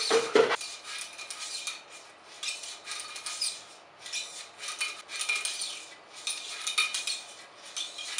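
A cleaning rod working a nylon bore brush back and forth through a Remington 870 shotgun barrel: repeated scraping strokes, about one a second, with metallic clinks. It opens with two sharp knocks, the loudest sounds here.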